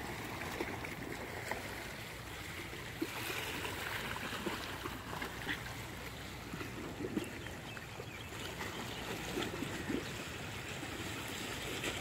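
Small waves lapping against a rocky seawall: a steady wash of water with many small splashes.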